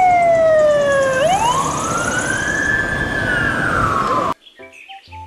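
Fire engine siren wailing over road noise: the pitch slides slowly down, sweeps back up about a second in and then eases down again. It cuts off abruptly near the end, giving way to faint music.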